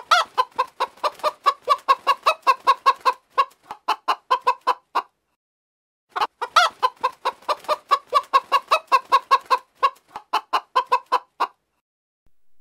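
Domestic hens clucking: a rapid run of short clucks, about four or five a second, in two stretches of about five seconds each, split by a pause of about a second.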